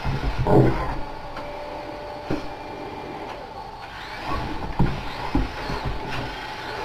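Toy radio-controlled tank's small electric motors and plastic gearbox whirring in uneven bursts as it is driven, with a few knocks.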